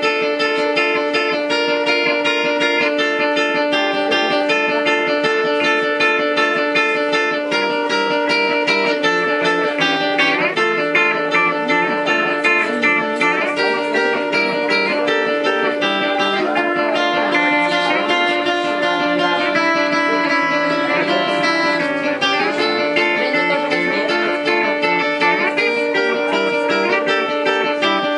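Live guitar music: a guitar playing a Gypsy-style tune of many quick picked notes, steady in loudness throughout.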